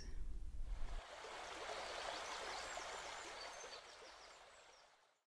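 Steady hiss of heavy rain, fading out about four seconds in.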